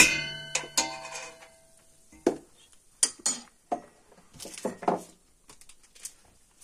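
Metal spoon clinking against a stainless steel pot, one strike ringing out briefly at the start, followed by scattered light knocks and clatter of kitchenware being handled.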